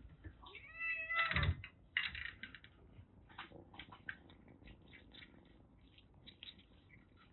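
A kitten meows once, a short wavering call about a second in, followed by a string of small irregular clicks and crunches from kittens eating dry kibble.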